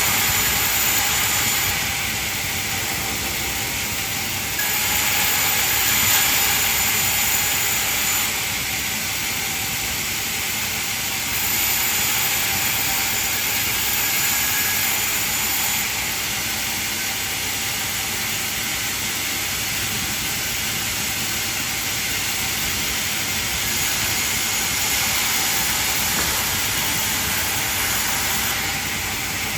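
Band sawmill running with a steady, high hissing whine. It grows louder in four stretches of a few seconds each, the sound of the blade working through timber.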